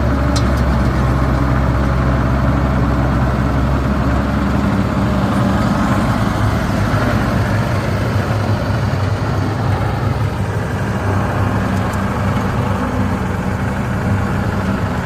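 Heavy diesel engine of earth-moving machinery running steadily, its pitch shifting about four and a half seconds in and again around ten seconds in.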